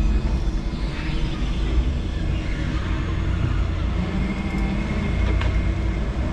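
5-ton electric forklift working with a pallet of OSB on its forks: a steady low rumble of the truck and its hydraulics, with a thin high electric whine coming in about four seconds in.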